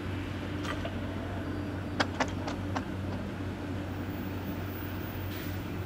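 Railway level-crossing barriers rising: a steady low hum, with a quick run of four sharp clicks about two seconds in.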